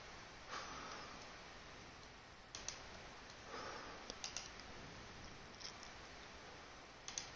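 A handful of faint computer mouse clicks spread over several seconds, over a low steady hiss.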